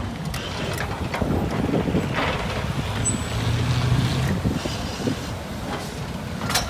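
Ten-wheeler truck's diesel engine running with a low rumble while the truck is stuck in mud, with wind on the microphone and a few knocks.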